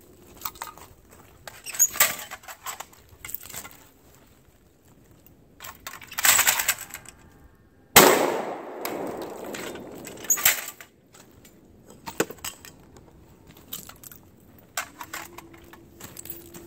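A single shot from a Lynx 12 AK-pattern 12-gauge shotgun firing birdshot, about eight seconds in, with an echo that fades over a few seconds. Shorter knocks and clanks come before and after it.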